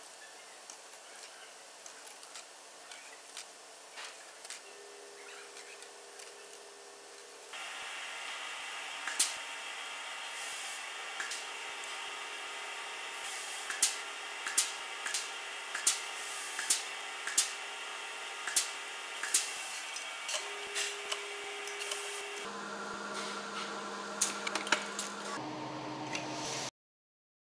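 Workshop machinery running: a quiet stretch of light ticking, then a steady machine hum with a series of sharp metallic strikes from a press riveting wire rake tines to the head plate. Near the end come a few seconds of held tones changing pitch in steps, which cut off suddenly.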